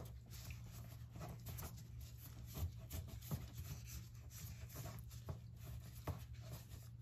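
Gloved hands pressing grated cassava down in a metal cake tin with the base of another baking tin: faint rubbing with a few soft knocks against the tin, over a low steady hum.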